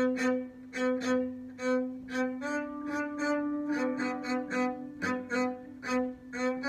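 Solo cello playing a steady run of short, separate notes, about two a second, on two neighbouring pitches. The line steps up one note about two and a half seconds in.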